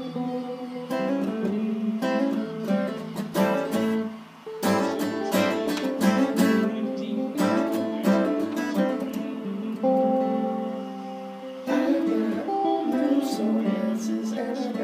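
Acoustic guitar strummed in a steady rhythm of chords, with a second small stringed instrument played along.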